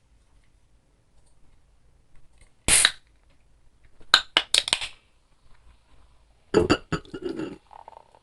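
Eating sounds at the start of a meal of pancit and chicharon: short noisy bursts in three groups, about three, four and a half, and seven seconds in.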